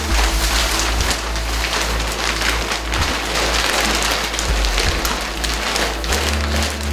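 Thin plastic drop sheeting crinkling and rustling as it is bunched up and rolled by hand, with background music underneath.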